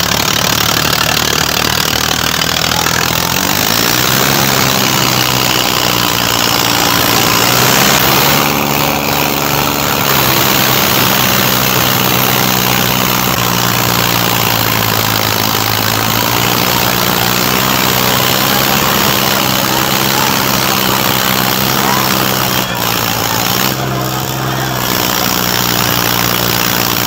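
Eicher 557 tractor's diesel engine running hard while hitched to a soil-laden trolley. Its steady note steps up a few seconds in, then sags briefly twice.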